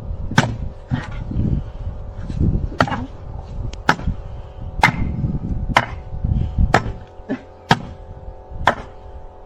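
Sharp strikes repeating about once a second, over a low rumble and a steady hum.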